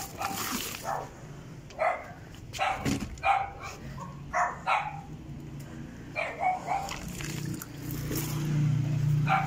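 A dog barking repeatedly in short separate barks, with a steady low hum underneath.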